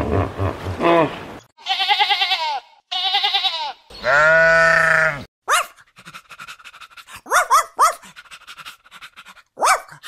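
Animal calls: three drawn-out, wavering calls in the first half, the last one the longest. These are followed by a dog's short, rising, high-pitched whines, three in quick succession and then one more near the end.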